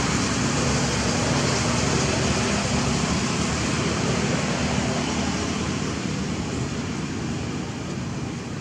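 Steady motor-vehicle engine hum and hiss, slowly fading.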